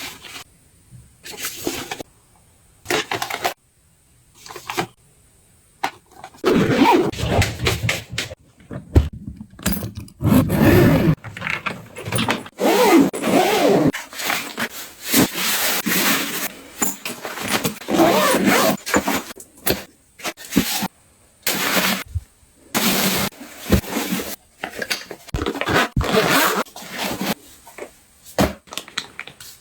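Travel items being handled and packed into luggage: irregular rustling, scraping and knocking of bags and objects, in short bursts with brief pauses.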